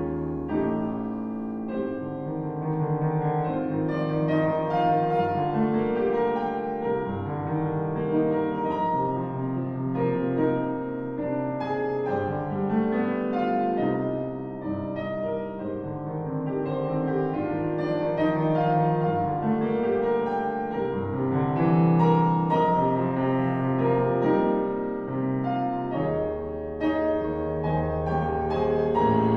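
Classical chamber music with the piano to the fore, many notes sounding together without a break.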